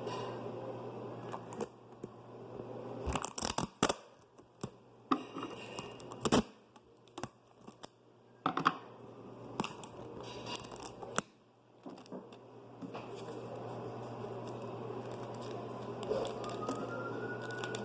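Adhesive tape being pulled off the roll and torn, with paper crinkling as it is taped along the edges of a paper squishy: scattered sharp crackles, then a longer rasping pull that ends in a rising squeal.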